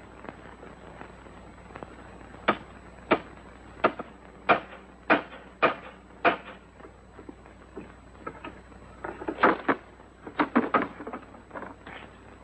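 Hammer blows on a wooden signpost: about seven evenly spaced strikes, a little under two a second, then a quicker, irregular run of wooden knocks and clatter near the end.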